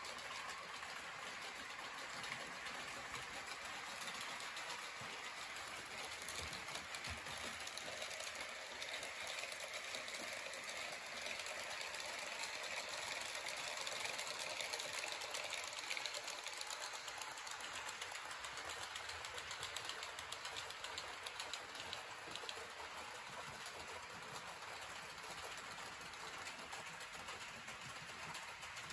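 Model railway train running on the layout track, a model BR 151 electric locomotive hauling a short freight train: a steady motor whirr and wheel noise with fine rapid ticking, a little louder around the middle.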